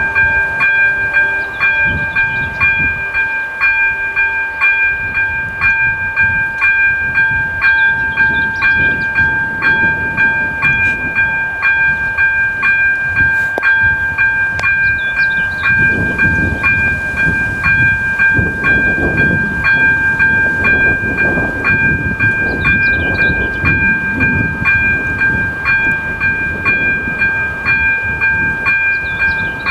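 ZV02 electronic level-crossing bell ringing steadily at about two strokes a second, each stroke a bright ding over a held tone, warning that a train is approaching while the barriers are down. A low rumble swells in the background about halfway through.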